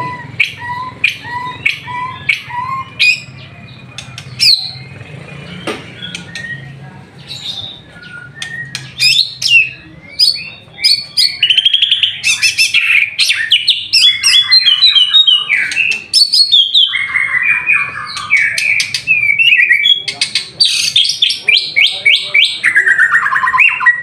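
White-rumped shama (murai batu) singing. It starts with a run of short rising notes about twice a second, then after about ten seconds breaks into loud, fast trilled phrases that change every second or so.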